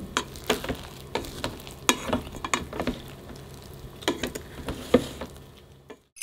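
Plastic rice paddle mixing freshly cooked rice in a rice cooker's inner pot: irregular soft scrapes and taps of the paddle against the pot and through the moist rice, stopping abruptly just before the end.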